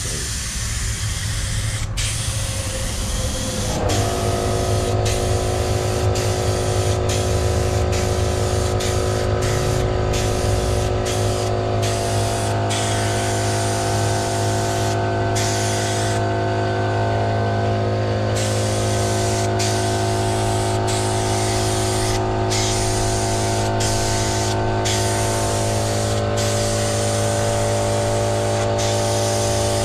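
Paint spray gun hissing in long passes, the air cutting off briefly again and again as the trigger is let go. About four seconds in, an air compressor motor starts and runs steadily with a hum under the spraying.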